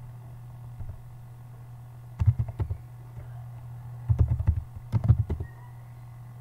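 Typing on a computer keyboard: three short bursts of keystroke clicks over a steady low hum.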